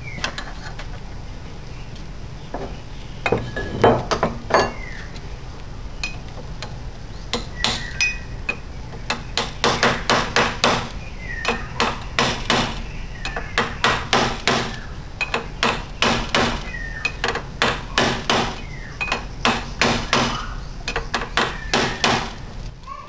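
Hammer blows on a steel drift, driving a tapered roller bearing onto a Jaguar E-type rear hub. A few scattered strikes at first, then a steady run of about two sharp metallic blows a second for most of the rest.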